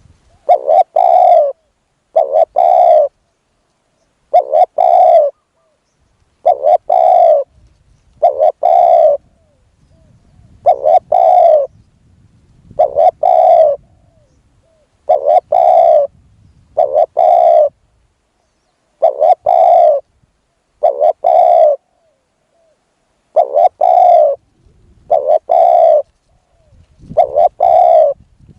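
Spotted dove cooing loudly and close by: a steady series of short, rough coo phrases, one every second or two.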